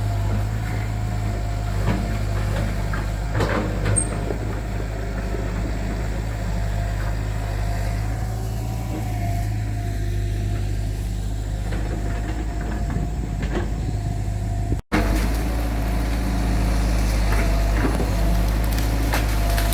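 Engine of heavy road-construction machinery running steadily, with a few short knocks and clanks. The sound breaks off for an instant about three-quarters of the way through, then carries on.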